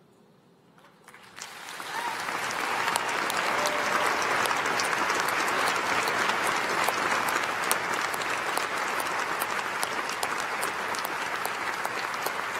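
Audience applauding: after a moment of near silence, applause swells in about a second and a half in and continues steadily.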